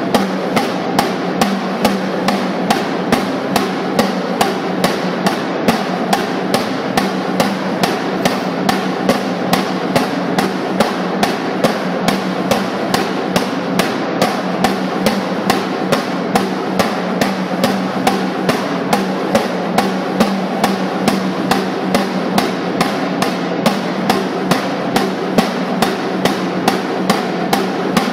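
Snare drum beaten continuously in a dense, even roll, with a stronger stroke about every half second.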